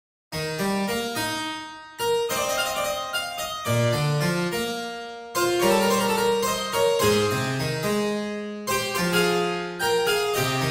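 Background music: a keyboard piece of quick notes and struck chords. It starts about a third of a second in.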